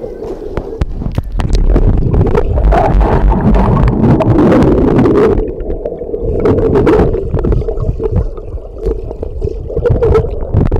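Appenzeller Sennenhund paddling through pool water, heard through a camera held at or below the surface: muffled churning water, gurgling bubbles and splashes, louder from about two seconds in.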